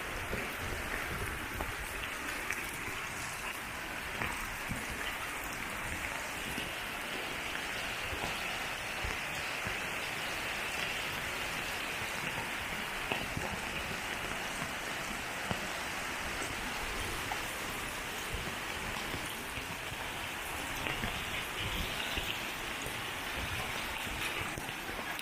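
Heavy rain falling steadily, with scattered individual drop hits, over muddy runoff water flowing across a dirt street.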